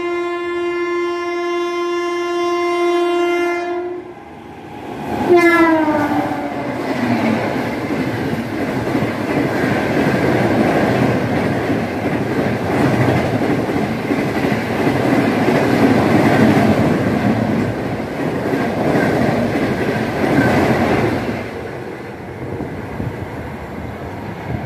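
Indian Railways superfast express train running through the station at speed. Its locomotive horn gives one long steady blast, then a second blast that drops in pitch as the locomotive passes. The rumble and clatter of the coaches follow for about fifteen seconds and fade away near the end.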